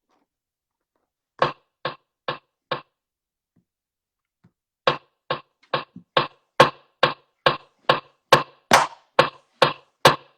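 A series of short sharp knocks: four close together about a second and a half in, then after a pause a steady run of about two knocks a second from about five seconds in.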